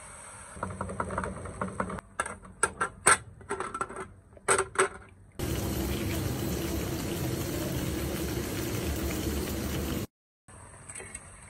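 Cooking sounds from a pot on the stove: a quick run of sharp clinks and taps, then a loud steady boiling hiss that cuts off suddenly near the end.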